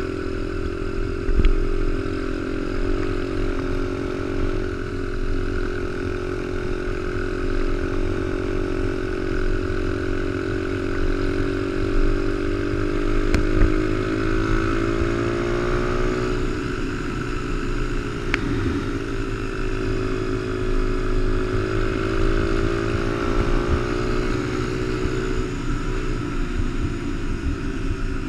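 Honda XR100 mini bike's single-cylinder four-stroke engine running under way at cruising speed, its pitch rising and falling gently with the throttle. A few sharp knocks sound over it.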